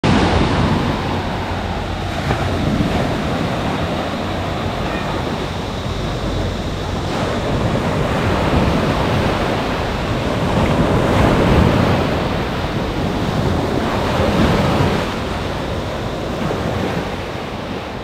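Sea waves washing onto a shore: a steady rushing noise that swells and eases every few seconds and begins to fade near the end.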